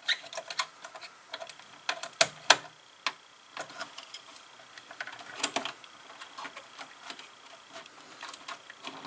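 Irregular small clicks and taps of a wire and a small screwdriver being worked at the screw terminals of a relay board in a control cabinet, with a few sharper ticks about two and five and a half seconds in.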